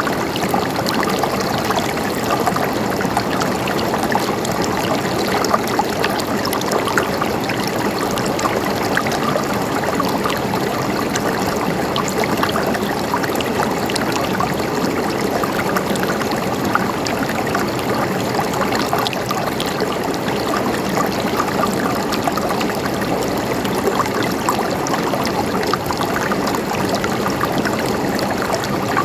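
Mountain stream of water running and gurgling, a steady, even rush.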